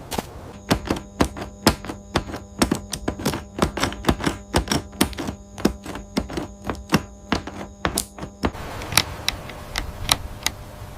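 Rapid, irregular tapping clicks, about three or four a second, over a steady hum. The hum stops about eight and a half seconds in, and the taps continue more sparsely.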